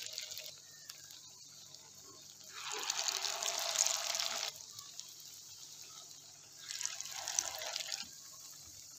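Kebab patties frying in hot oil in a pan: a steady sizzle that turns loud twice, about two and a half seconds in and again near seven seconds, as fresh patties go into the oil.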